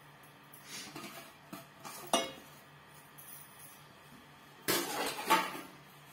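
Metal kitchenware clinking and knocking: one sharp clink about two seconds in, then a short cluster of louder clattering knocks near the end.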